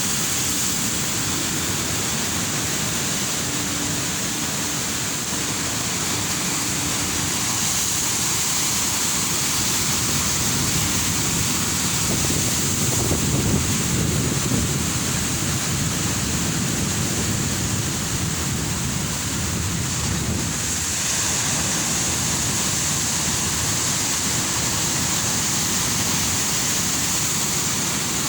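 Ocean surf breaking and washing on the beach, a continuous roar of water that swells louder about halfway through.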